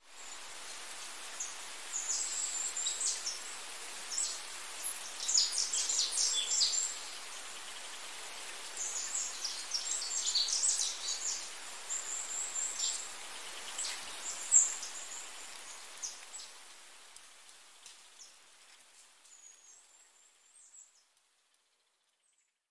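Small birds chirping in clusters of quick, high twittering calls over a steady hiss. Both fade out gradually about three-quarters of the way through, leaving near silence.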